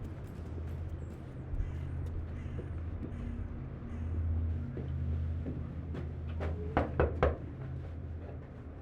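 A few sharp knocks on a door in quick succession about seven seconds in, over a steady low hum.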